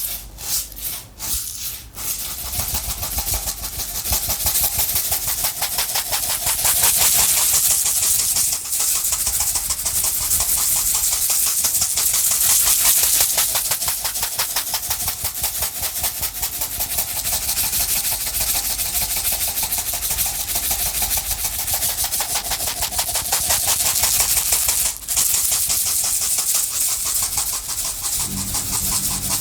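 A container of small loose objects shaken by hand. It starts with a few slow, separate shakes, then about two seconds in turns to fast, continuous rattling that keeps going.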